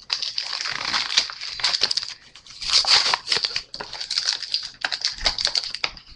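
Trading-card booster pack wrapper being handled and crumpled, a dense crinkling and crackling in several bursts with sharp clicks.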